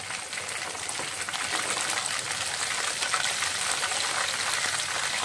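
Chicken pieces deep-frying in hot oil in an aluminium wok during their second fry: a steady sizzle with fine crackling.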